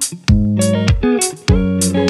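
Background music: a guitar-led track over a steady beat.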